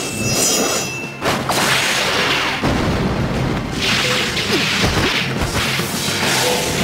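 Fight sound effects for a flying-sword attack: swishing whooshes and rock crashing and tumbling down, over background music.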